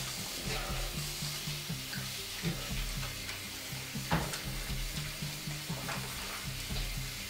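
Water running from a bathroom tap into a sink as hands are rubbed and washed under the stream, a steady hiss with a few small splashes. A low, pulsing music score plays beneath it.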